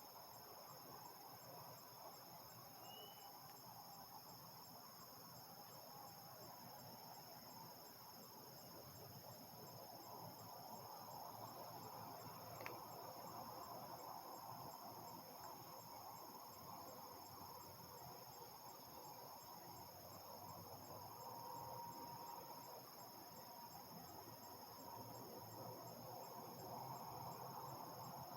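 Faint insect chorus of crickets, a steady high-pitched trilling with one pulsing band, over a low, faint background rumble. A single brief click about halfway through.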